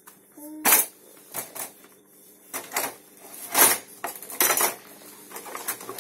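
Metal kitchen utensils, ladles and spoons, clanking and clinking in a wooden drawer as a baby climbs in and sits on them: irregular clatters, the loudest about a second in and again about three and a half seconds in.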